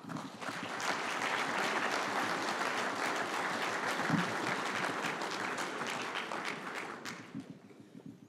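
Audience applauding: a dense patter of many hands clapping that swells right away, holds steady, then dies away about seven seconds in.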